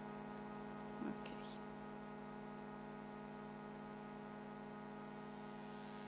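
Faint, steady electrical hum from the sound system, with one short faint noise about a second in.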